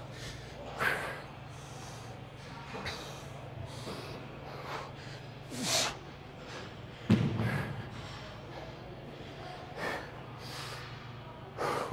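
A man breathing hard after heavy lifting, with sharp, hissy exhales every second or two over a steady low hum. A louder, heavier thud or grunt comes about seven seconds in.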